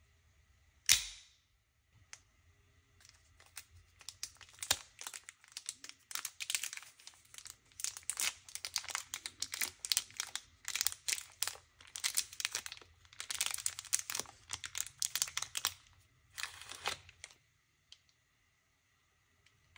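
A sharp click about a second in, then a cigar's cellophane wrapper crinkling and tearing in many quick crackles as it is peeled off, stopping a little before the end.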